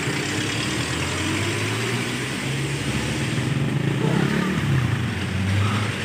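Microwave oven running with a steady low hum while it arcs inside, a fault the repairer puts down to a burnt magnetron antenna.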